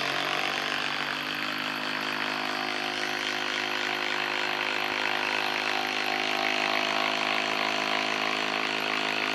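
Hilti SID 4-A22 cordless impact driver hammering without a break as it drives an 8-inch TimberLOK screw down into a wood log, a steady whine under rapid impacts.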